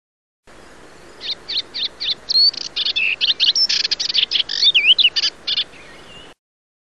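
A small bird chirping and twittering: a quick run of short high chirps with a few sliding whistles, starting about a second in. The sound cuts off suddenly near the end.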